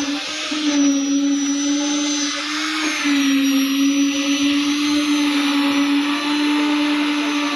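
Concrete pump running: a loud, steady whine over a dense hiss, the tone dipping briefly about half a second in and again about three seconds in.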